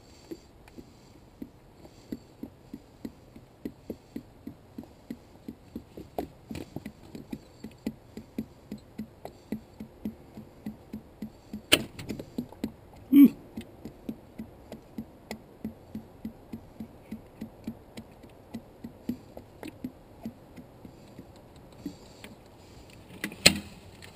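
Oil glugging out of a tipped 5-gallon plastic pail into a funnel, about two glugs a second, as fresh diesel engine oil is poured into the engine's filler. A couple of sharper knocks come about halfway through, and a clunk near the end as the pail is lifted upright.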